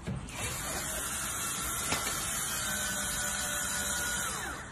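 Cordless drill with a 2.5 mm bit drilling through an aluminium profile: the motor runs at a steady speed for about four seconds. Near the end its whine falls as the drill stops.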